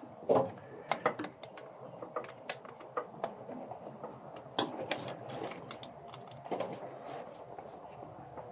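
Irregular metallic clicks, clinks and knocks of hand tools being worked on the truck, the loudest in the first second and again about five seconds in.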